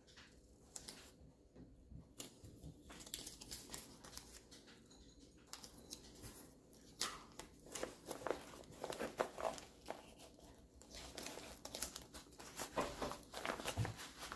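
Blue painter's tape being peeled, torn and pressed down, with parchment paper and drysuit fabric being handled: faint, irregular crackling and ripping, busier in the second half.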